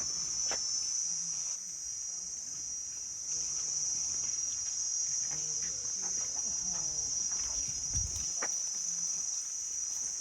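Steady, high-pitched drone of an insect chorus in tropical forest, with a brief low bump about eight seconds in.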